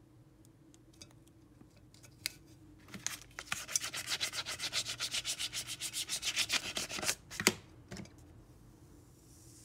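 A plastic scraper tool rubbing vinyl lettering onto the side of a bowl in rapid back-and-forth strokes, burnishing the decal down. The strokes run for about four seconds and end with a sharp knock.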